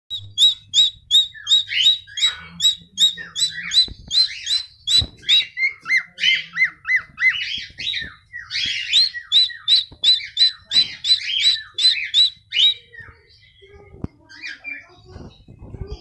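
Cockatiel singing: a fast run of short, rising whistled chirps, about three a second, for about thirteen seconds, then softer, scattered chirps near the end.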